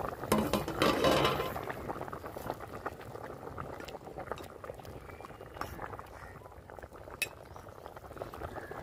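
Fish curry bubbling at a full boil in a metal pot while a metal ladle is stirred through it, clinking against the pot now and then. The stirring is loudest for about a second near the start, and there is a single sharp clink late on.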